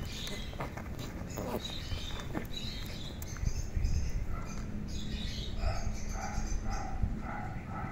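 Cats play-fighting: scuffling and soft knocks as they wrestle. From about two-thirds of the way in, a run of short high chirps repeats about twice a second.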